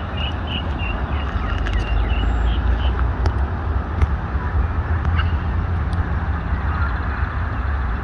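Wind buffeting the microphone in an irregular, loud low rumble, while a bird gives a quick run of about eight short chirps in the first three seconds.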